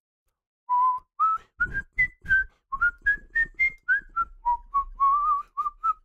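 A man whistling a tune: a quick run of short notes stepping up and down in pitch, beginning just under a second in.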